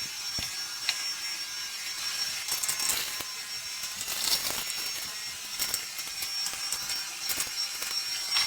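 Uwant cordless stick vacuum running, a steady hiss with a thin high whine, with scattered small clicks and rattles of debris being sucked up.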